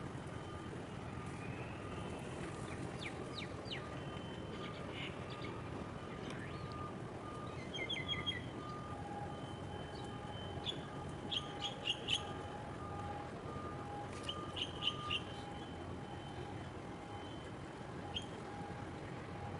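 Birds chirping in short clusters of quick calls over a steady low rumble of harbour background noise, with a faint note repeating steadily beneath, dropping lower in pitch about halfway.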